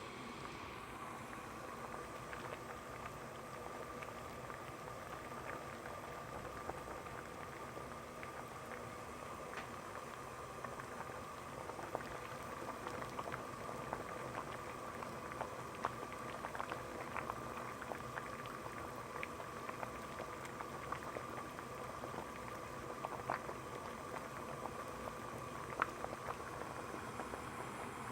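Water boiling, a steady bubbling with many small sharp pops scattered through it. The pops grow more frequent and slightly louder from about ten seconds in.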